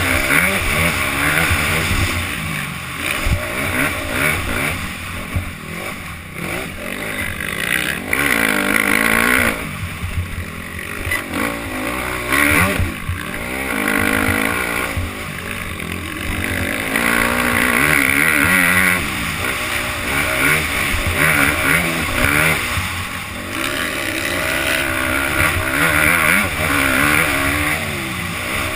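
Motocross bike engine, ridden hard over a dirt track and heard from a helmet camera: it revs up and drops back over and over as the rider accelerates, shifts and rolls off, with a constant low rumble underneath.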